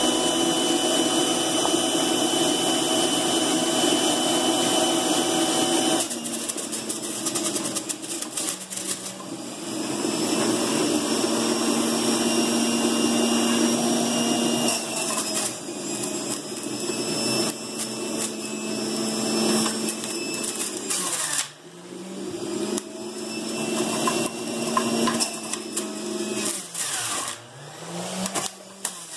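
Breville centrifugal juicer running, a loud motor whine. Several times, most plainly in the last ten seconds, the pitch sags and climbs back as produce is pushed down the feed chute and the motor is loaded.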